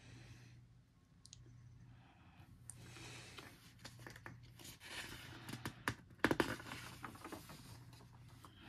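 Paper rustling as a large coloring-book page is handled and turned over, with a cluster of sharper paper crackles about six seconds in.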